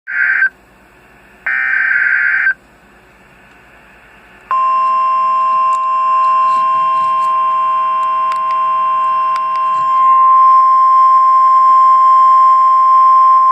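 Emergency Alert System SAME header on NOAA Weather Radio: two short, harsh digital data bursts about a second apart. About two seconds later the steady 1050 Hz warning alarm tone starts and holds for about nine seconds, getting a little louder near the end. This is the alarm tone that sets off weather-radio receivers, here sent as a test.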